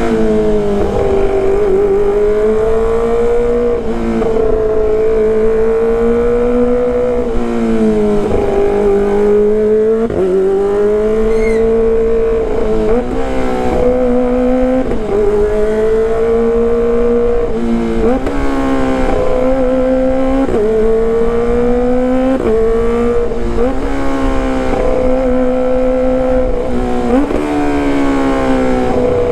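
Kawasaki ZX-25RR's inline-four engine through a loud exhaust, ridden hard at high revs: a high, steady engine note that dips sharply and climbs back about a dozen times, like gear changes.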